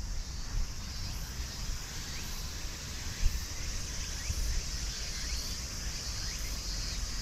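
Steady, high-pitched chorus of insects, with wind rumbling on the microphone and one brief bump about three seconds in.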